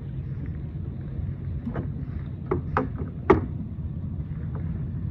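Wind buffeting the camera microphone as a steady low rumble, with four or five light knocks about two to three and a half seconds in, the last one the loudest.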